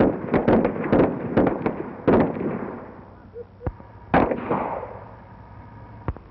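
Gunfire from federal agents' firearms: a rapid string of sharp shots for about two seconds, then a few single shots spaced out.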